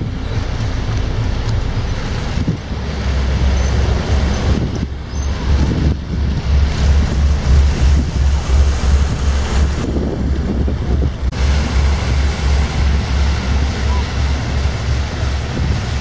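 Low, rapid rhythmic throbbing from a 1950 hp inland motor tanker's engine and propeller passing directly below, growing stronger about three seconds in. Propeller wash churns the water, and wind buffets the microphone.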